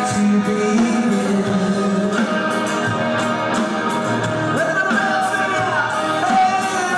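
Live rock band playing: electric guitars, bass and drum kit with a male lead vocal, heard from the audience.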